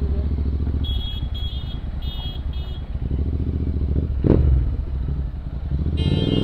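Royal Enfield Interceptor 650's parallel-twin engine running under way, a steady low rumble. A short sharp whoosh comes about four seconds in.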